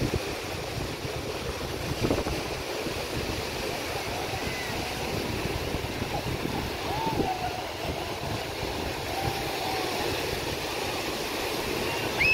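Beach ambience: steady surf and wind buffeting the microphone, with faint distant voices calling from about four seconds in.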